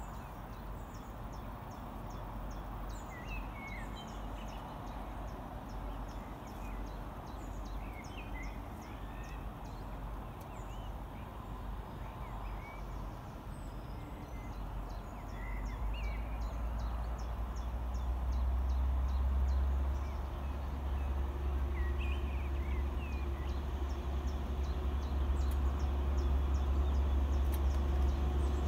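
Birds singing, with scattered chirps and trills, over a low rumble that builds from about halfway through and gains a steady low hum near the end: the Eurotunnel Krupp diesel locomotives approaching on the test train.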